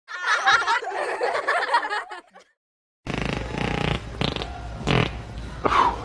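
A short burst of laughter on the intro, then, after a brief silence, a long rasping fart sound followed by a few shorter sharp blasts.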